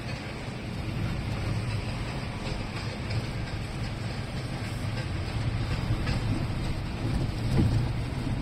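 Steady low rumble of engine and tyre noise inside a moving car, swelling briefly near the end.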